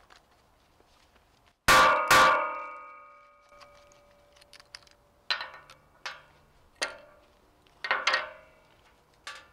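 Inertia bullet puller struck hard against a bench twice, each blow clanging with a ring that fades over about a second, to knock the bullet out of a .223 cartridge. Several lighter knocks follow in the second half.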